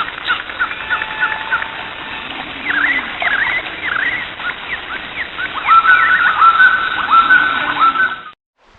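Animal calls: a string of short, squeaky chirps and falling calls over a steady hiss. The calls grow louder and more regular in the last few seconds, then stop abruptly.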